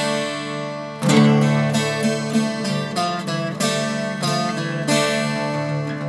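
Instrumental music on a plucked string instrument: a strong strummed chord at the start and another about a second in, followed by a run of plucked notes.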